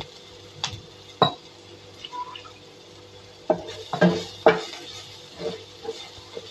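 Spatula scraping and knocking against a non-stick frying pan while stirring a frying ginger-garlic-cashew paste: a few single knocks in the first second and a half, then a quick run of scrapes and taps from about three and a half seconds in.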